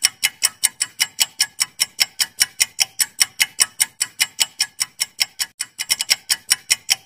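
Clock-ticking sound effect of a quiz countdown timer: sharp, even ticks at a quick pace, marking the time allowed to answer the question.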